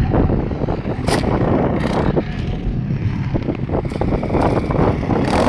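Motocross dirt bike engine running as the bike jumps and rides past, mixed with wind buffeting the microphone.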